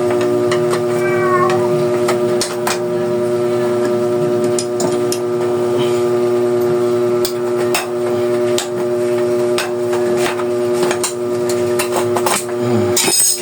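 Scattered light clicks and knocks from work on a bicycle wheel as the tyre is being taken off, over a steady droning hum.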